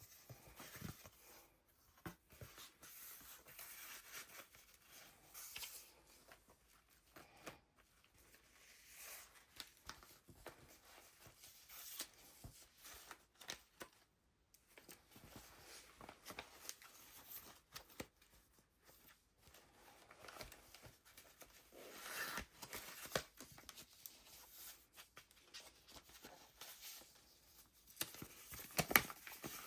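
Pages of a handmade junk journal being turned and handled: soft, irregular paper rustling with a few sharper page flicks, louder in spells about two-thirds of the way through and near the end.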